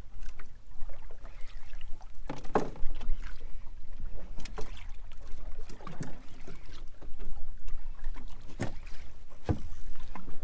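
Small fishing boat at sea: a steady low rumble of wind and water, with several sharp knocks through it.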